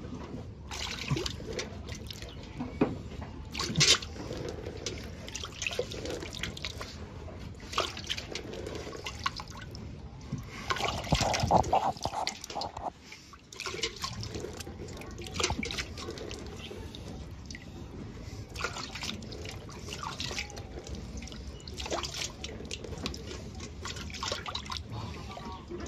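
Milk squirting and dripping into an aluminium pail as a ewe is milked by hand, in irregular spurts.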